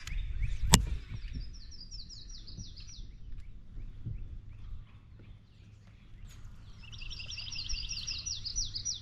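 A songbird singing quick runs of high, repeated down-slurred notes, once about a second in and again longer from about seven seconds in. A single sharp click, the loudest sound, comes just before the first run, over a low steady rumble.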